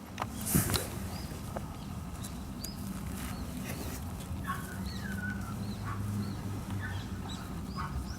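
Small birds chirping, many short arched calls repeated every second or so, with a few longer gliding notes, over a low steady hum.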